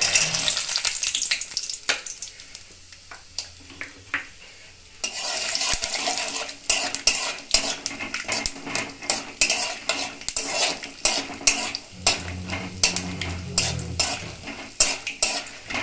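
Peanuts frying in hot oil in a metal kadai, sizzling, while a metal spatula scrapes and clicks against the pan as they are stirred. A burst of sizzle as the peanuts go in at the start, a few quieter seconds with occasional clicks, then steady sizzling with frequent scraping from about five seconds in.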